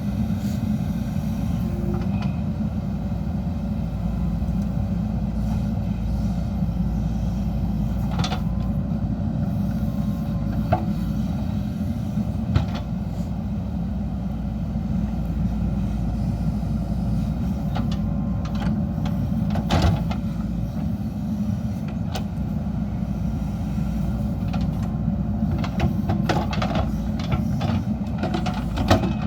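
JCB 3DX backhoe loader's diesel engine running steadily under working load, with occasional sharp knocks and a cluster of clanks near the end.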